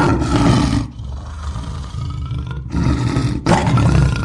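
Lion roaring: a loud, rough roar at the start, a quieter growling stretch, then two more roars near the end.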